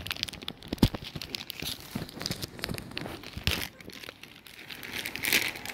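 Clear plastic packaging bag crinkling and rustling as it is handled with an HDMI cable inside, in irregular crackles that thicken near the end, with a couple of dull knocks.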